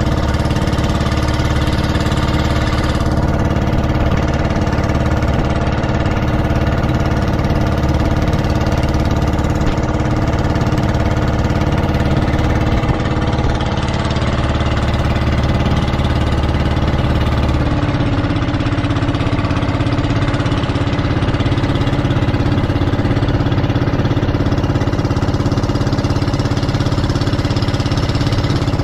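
Motorized outrigger boat's engine running steadily under way. Its note shifts about two-thirds of the way through as the engine speed changes.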